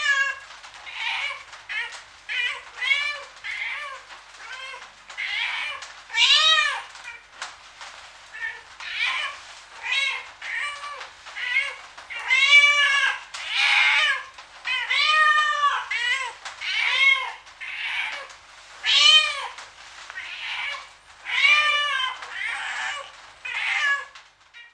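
Domestic cat meowing over and over, short high calls about one or two a second, each rising then falling in pitch; the calls stop abruptly near the end.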